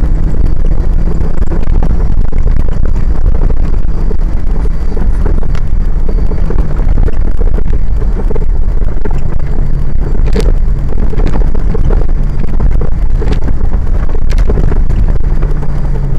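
Off-road 4x4's engine running under load as it drives over a rough dirt track, loud and distorted, with a heavy low rumble and wind buffeting the microphone. Several sharp knocks in the second half, typical of the vehicle jolting over ruts.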